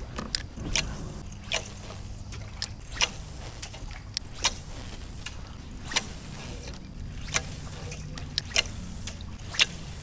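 Kayak under way on its motor: a steady low hum, with sharp irregular knocks about once a second.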